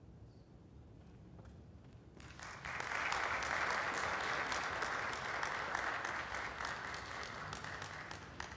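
A brief hush, then an audience breaks into applause about two seconds in and keeps clapping steadily.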